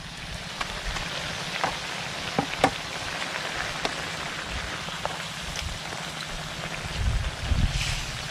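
Fried fish and soy-vinegar sauce sizzling in a wok over a wood fire: a steady hiss with scattered sharp pops and crackles, and one sharper tap about two and a half seconds in.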